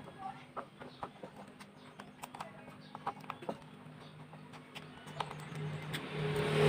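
Irregular light clicks and taps of small parts and tools being handled, over a steady low hum; a louder rushing noise swells up near the end.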